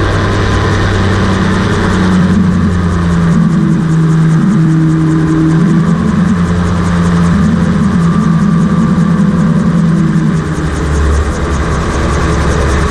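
Rotax 582 two-stroke twin engine of a homebuilt float gyroplane running steadily with its propeller, the engine note wavering up and down a little.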